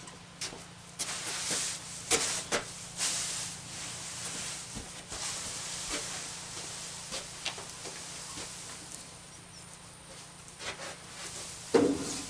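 Loose dry hay rustling and scraping as it is pushed in armfuls into a garden cart, with scattered crackles, and a single loud knock near the end.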